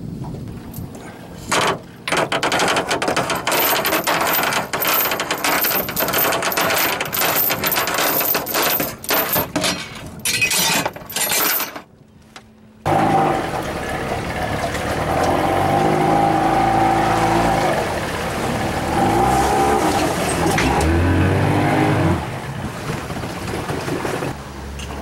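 Aluminium jon boat running over choppy water: a dense rattle of rapid slaps and knocks with rushing wind noise. About halfway through this cuts off suddenly and an engine takes over, its pitch rising and falling for several seconds before easing off near the end.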